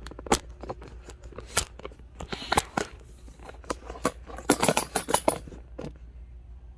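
Handling noise from a phone being carried and turned around: irregular clicks, knocks and rustles, densest about four and a half seconds in.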